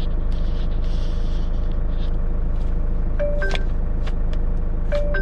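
Steady low rumble of a vehicle engine idling, with light clicks; from about three seconds in a short electronic chime of a few notes repeats about every one and a half seconds.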